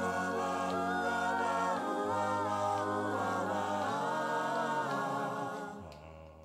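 Background music: wordless a cappella vocal harmony in held chords that change every second or two, fading out near the end.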